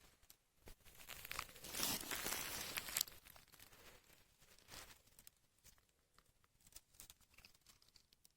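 Dry plant material crackling and rustling, dense and loudest for the first three seconds, then only a few faint crackles.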